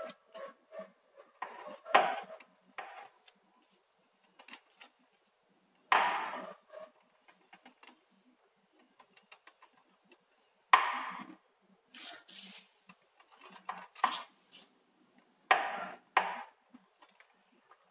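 Clucking from the front sprocket area of a Honda MSX (Grom): a loud metallic knock with a short ring-out roughly every four to five seconds, with lighter clicks in between. It happens only when the drivetrain turns in the direction of travel, and the owner cannot tell whether it is the sprocket or the gearbox.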